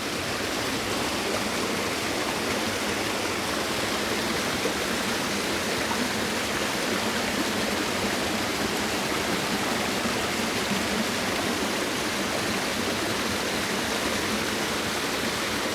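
Creek water cascading down a multi-tiered waterfall, a steady, even rush of falling water.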